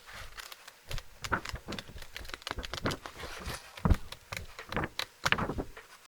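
Paper being crumpled and handled, a run of irregular sharp crackles with a louder snap about four seconds in.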